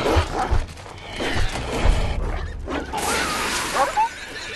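Movie dog fight: dogs snarling and growling amid scuffling thuds, under tense film music.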